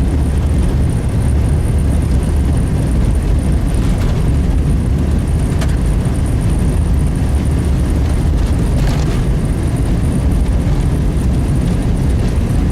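Truck driving on a snow-covered gravel road, heard from inside the cab: a steady low rumble of engine and tyres, with a few faint brief clicks.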